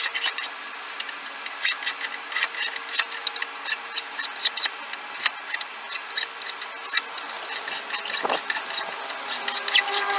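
Hand file scraping in short, irregular strokes across the edge of a hickory handle, rounding off its corners.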